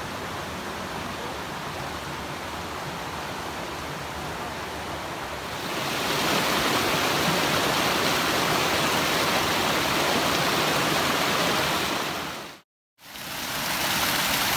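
Mountain stream rushing and splashing over rocks as a steady hiss of water, growing louder about halfway through as it changes to a faster cascade. The sound cuts out for a moment near the end, then returns.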